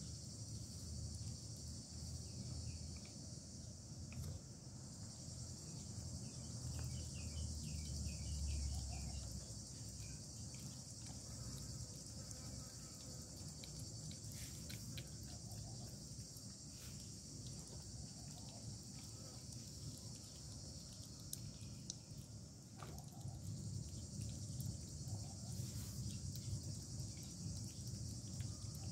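Steady high-pitched chorus of insects, with a low rumble underneath and scattered soft clicks.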